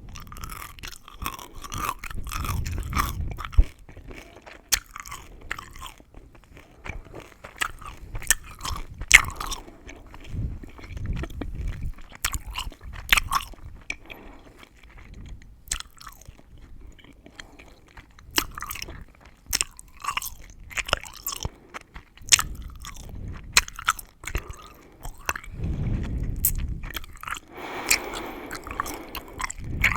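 Gum chewing with mouth sounds: irregular sharp crackles and clicks of the gum, with softer spells of chewing between them.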